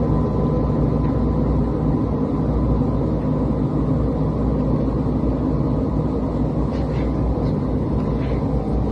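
Steady, loud machine hum with a low rumble and a constant high whine, like a motor running, with a few faint ticks near the end.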